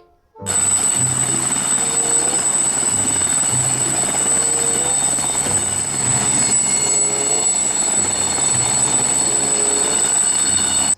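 Toy helicopter's electronic sound effect: a steady rotor-like noise with a high whine and a simple tune under it. It starts suddenly about half a second in and cuts off abruptly.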